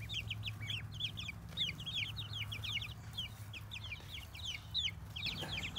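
A small flock of five-to-six-week-old chicks and ducklings peeping: many short, high, falling chirps, several a second and overlapping, over a low steady hum.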